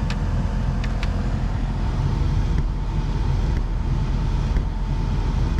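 Steady hum of a Volkswagen Gol G8's air-conditioning blower fan with the car running, with a few light clicks from the recirculation flap, which keeps closing and not closing properly.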